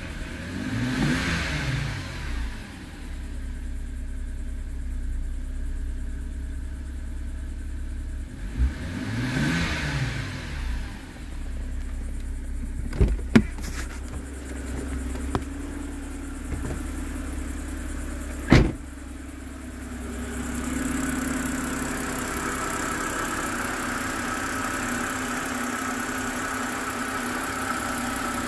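BMW N52 straight-six engine blipped twice from idle, its pitch rising and falling each time, then settling back to a steady idle. Several sharp knocks come in the middle. Near the end the idle is heard with the hood open, with more high-pitched mechanical chatter from the engine bay.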